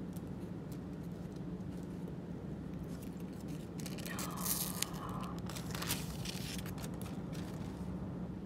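Unboxing handling sounds: small clicks and a brief burst of crinkling and scraping from packaging about four seconds in, over a steady low hum.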